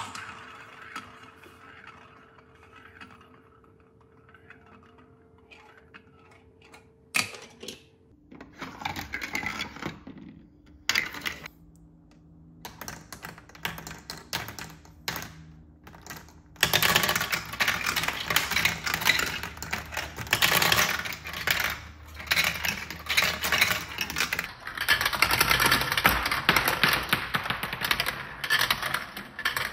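Marbles rolling and clattering down the plastic chutes, funnels and tracks of a VTech Marble Rush marble run. At first there are a few scattered clicks and rattles. Past the halfway point it becomes a dense, continuous clatter as many marbles run through together.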